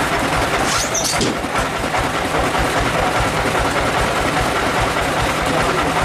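Sawmill band saw machinery running steadily with a dense, even mechanical noise, as a log is pushed along its carriage. A brief high-pitched squeal cuts through about a second in.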